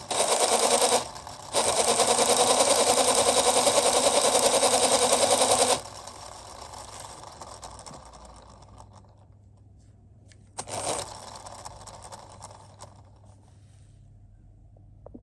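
LEGO Technic freewheel mechanism running with a loud, fast clicking rattle of plastic parts, broken by a short pause about a second in. About six seconds in the rattle stops abruptly, and a much fainter clicking fades away as the mechanism coasts down.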